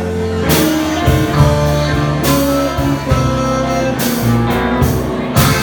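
Live blues band playing an instrumental fill between vocal lines: guitar notes over bass and drums, with cymbal hits every second or two.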